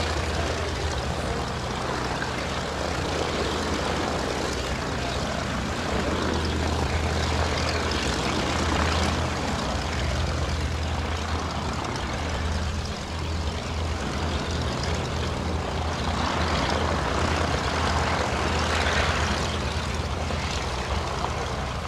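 Bristol M1C monoplane's Le Rhône rotary engine running steadily in flight, with the propeller sound swelling twice as the aircraft passes, around nine seconds in and again near the end.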